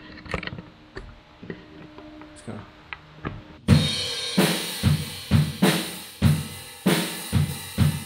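Acoustic drum kit played behind a clear acrylic drum shield with a back absorption panel, heard from the front of the stage. A few faint hits at first, then about a third of the way in a loud steady beat of kick and snare under washing cymbals comes in abruptly.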